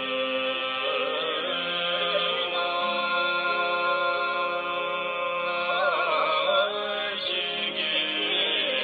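Tibetan Buddhist tsog song chanted to a slow melody: long held notes over steady sustained tones, with wavering ornamented turns about a second in and again around six seconds in.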